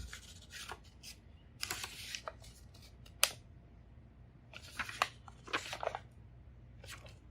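Light scattered clicks and short rustles of a Royal Quiet DeLuxe portable manual typewriter being handled, with one sharper click about three seconds in.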